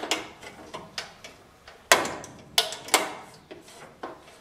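Sharp metallic clicks and light knocks of a sheet-metal control board bracket being handled and fitted into place in a furnace cabinet. There are about eight irregular taps, the loudest about two seconds in.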